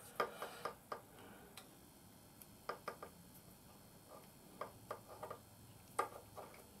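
Black electrical tape being pulled off its roll and wound around a wire connection: quiet crackling and clicking in several short, irregular clusters.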